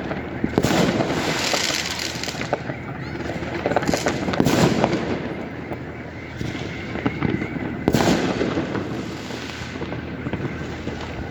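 Fireworks and firecrackers going off: a steady crackle of sharp pops, with heavier bursts about a second in, near the middle and about eight seconds in.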